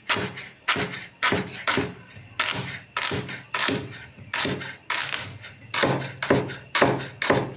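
Knife chopping celery and carrots on a cutting board, a steady run of sharp strikes about two a second.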